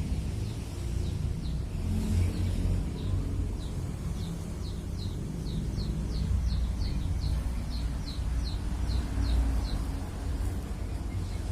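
A pet snoring close to the microphone: a steady low rumble. Over it a bird repeats short, high, falling chirps, about three a second, for several seconds in the middle.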